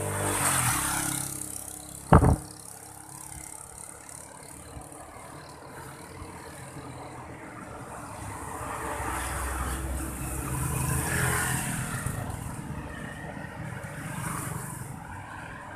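Motor traffic on the road, engines swelling louder and fading over a few seconds. A single sudden loud thump comes about two seconds in.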